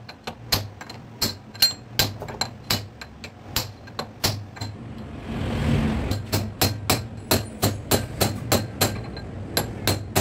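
Rapid metal-on-metal knocks, about three a second, as gears are driven home on a truck gearbox mainshaft during reassembly. The knocking breaks off briefly about five seconds in under a swelling low rumble, then resumes.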